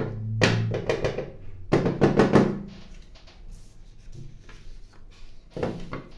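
Hollow plastic knocks and clatter from a laser toner cartridge being knocked against the bench and handled, in two loud clusters, one at the start and one about two seconds in, while old toner is shaken out. Lighter handling noises follow, with another short burst of knocks near the end.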